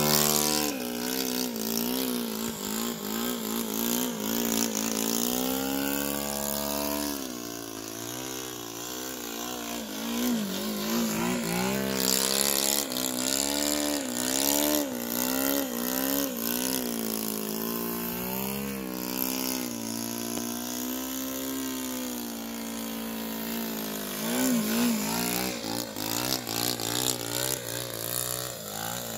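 A radio-controlled model airplane's .80 Magnum glow engine running in flight, its pitch rising and falling again and again as the plane is thrown through aerobatics.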